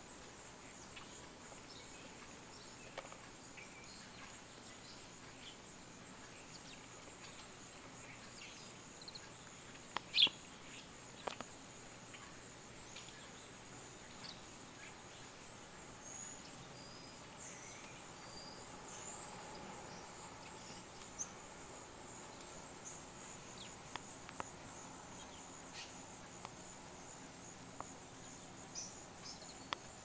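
Steady, high-pitched, pulsing chirring of insects in a back yard, with a few short bird chirps in the middle and one sharp, louder sound about ten seconds in.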